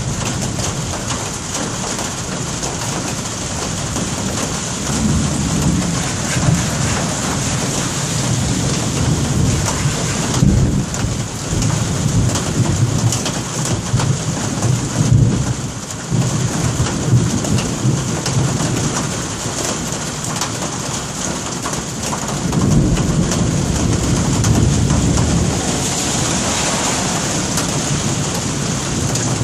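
Steady rain with thunder rumbling: one long, uneven rumble through the middle and a shorter one later on.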